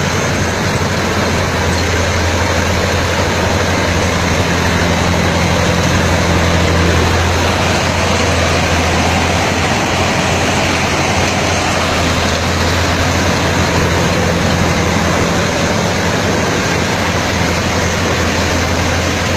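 4x4 combine harvester's engine and machinery running steadily at full working speed: a loud, constant drone over a low hum.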